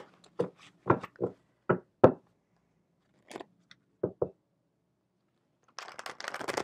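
Hands handling a Romance Angels oracle card deck: a scatter of short knocks as the deck is tapped and squared, then card shuffling starting near the end.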